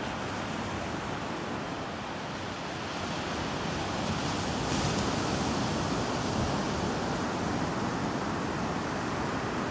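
Small ocean waves breaking and washing up a sandy beach: a steady rush of surf that swells louder about halfway through.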